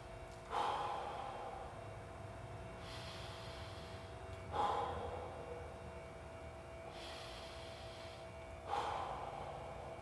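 Slow, deep breathing through the ribcage during a held stretch: three big breaths about four seconds apart, each a sudden rush of air that fades over a second or two.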